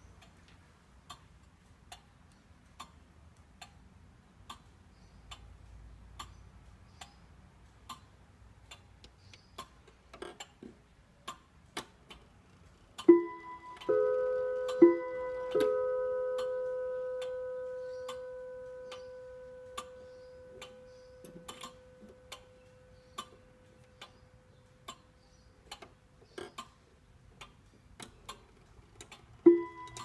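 Junghans grandmother clock ticking steadily, a little under once a second. About 13 seconds in it strikes the hour as two two-note ding-dongs for two o'clock, and the last note rings on and slowly dies away. A single ding-dong for the half hour begins right at the end.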